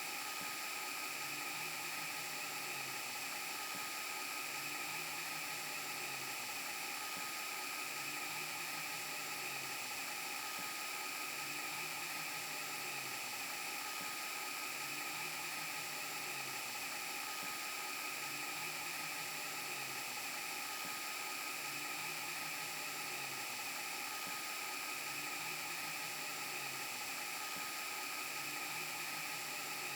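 VHS and broken-TV glitch sound effect: steady electronic static hiss with high whining tones running through it, and a faint low hum that dips in pitch and repeats about every 1.7 seconds.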